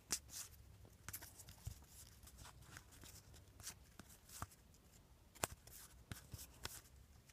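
Faint, scattered clicks and soft rustling of football trading cards being handled and slid one behind another while flipping through a pack.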